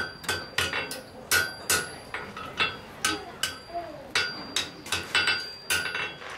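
Blacksmith's hammer striking hot steel on an anvil in a steady rhythm, about three blows a second, each blow with a short bright metallic ring.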